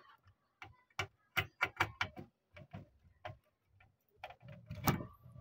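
Irregular light clicks and taps from hands handling wires and a plastic connector on an amplifier circuit board, with a slightly louder knock near the end.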